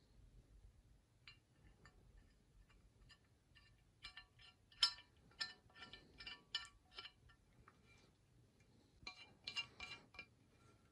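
Steel brake-caliper guide pins clinking and tapping against the caliper carrier bracket as they are handled and pushed into its bores: light metallic clinks with a short ring, a few scattered at first, then a busy run about four seconds in and another near the end.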